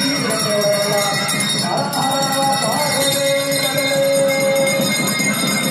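A temple hand bell rings continuously during the lamp-waving aarti, under a man's devotional singing through a microphone and loudspeaker.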